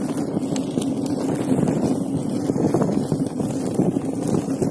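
Wind buffeting the microphone over the steady rumble of an Inmotion V5F electric unicycle's tyre rolling fast along a dirt trail, with scattered small clicks and ticks.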